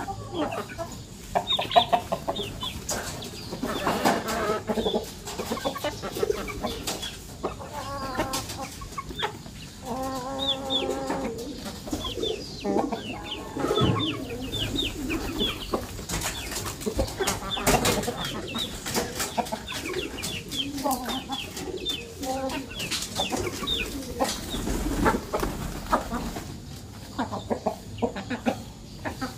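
A flock of chickens clucking while they feed, with chicks peeping in quick runs of short, high, falling calls. One bird gives a longer drawn-out call about ten seconds in.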